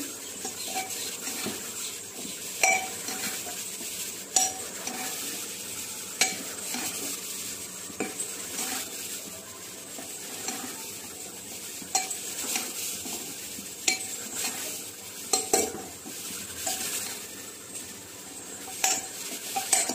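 A steel spoon stirring and scraping chopped vegetables sautéing in a pressure cooker pot, with irregular clinks of the spoon against the pot's rim and sides over a steady sizzle.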